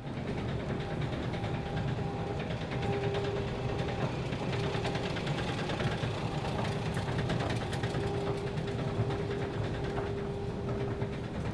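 Escalator running: a steady mechanical hum with a fine rapid rattle and a held whine that grows stronger about three seconds in.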